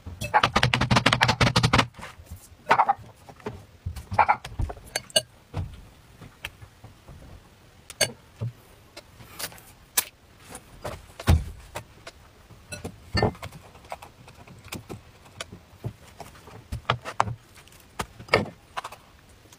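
A wire whisk beating batter in a bowl, a fast run of metallic clicks for about two seconds. After it come scattered light taps and knocks of kitchen utensils and the crepe maker being handled.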